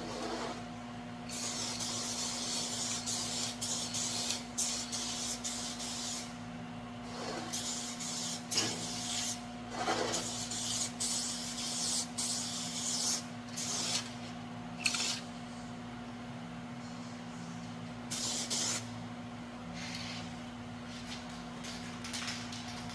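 Aerosol spray-paint can spraying in repeated hissing bursts, some long and some short, stopping and starting, over a steady low hum.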